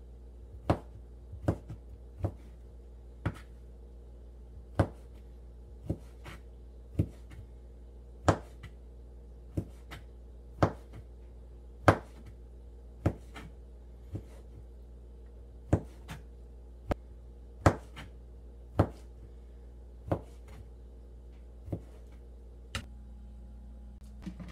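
Chef's knife slicing Chinese sausage and knocking on a plastic cutting board: sharp, irregular knocks about once a second, with a short pause partway through, over a steady low hum.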